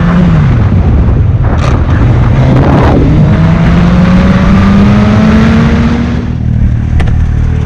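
Sport motorcycle engine with wind rush, heard from the rider's helmet camera. The engine note dips just after the start, climbs steadily for a few seconds as the bike accelerates, then eases off near the end as it slows for traffic.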